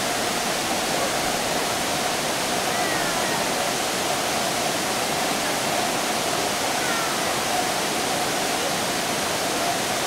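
Fukuroda Falls pouring down: a steady, even rush of falling water with no break.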